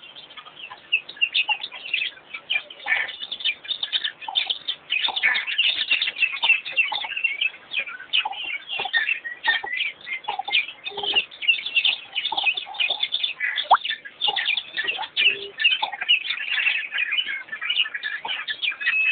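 A dense chorus of many small birds, chirping and twittering without a break, with a couple of short, low notes from another bird near the middle.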